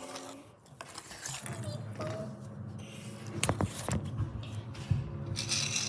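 A few sharp clicks and knocks of a plastic Lego car and the phone being handled against a wooden table, over a low steady hum.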